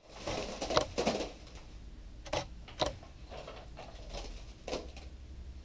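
Cream pies in thin foil pie tins pushed and smeared into a face: a few short wet splats and crinkling rattles of the tins, the loudest about a second in, with fainter scraping between.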